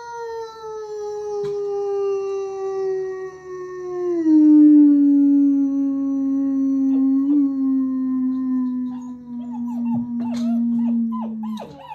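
A long, unbroken human howl that falls slowly in pitch, started to get the German shepherd puppies howling. Near the end the puppies join in with short, higher, broken howls and yips.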